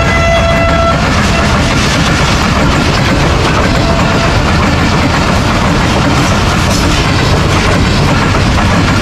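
Diesel locomotive horn sounding a held chord that cuts off about a second in, then the loud, steady noise of an express train running past at speed.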